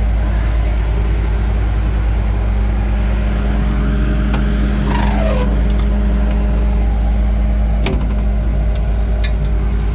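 Engine running steadily with a deep, even drone, with a few sharp clicks or knocks near the end.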